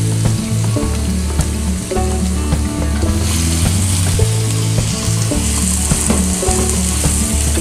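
Chopped onion and garlic sizzling in hot oil in a non-stick wok, stirred and scraped with a spatula; the sizzle gets brighter about three seconds in.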